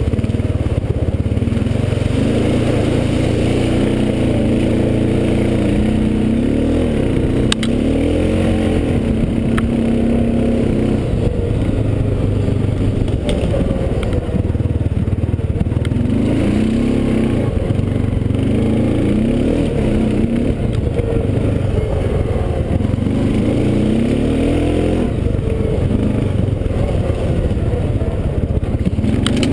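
Honda 500 ATV engine running under way, its pitch climbing and dropping again and again as the throttle is opened and eased, over a dense low rumble, with a few sharp knocks.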